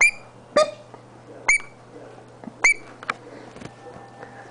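Lovebird giving short, sharp, high-pitched chirps, four or five of them spaced about a second apart.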